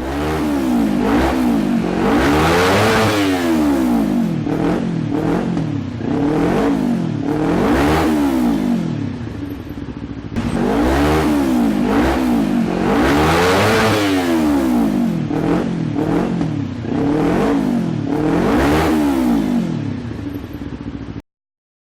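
Kawasaki Ninja 250 parallel-twin engine revved up and back down again and again through its exhaust, each blip rising and falling in pitch. There is a short dip about ten seconds in, and the sound cuts off suddenly near the end.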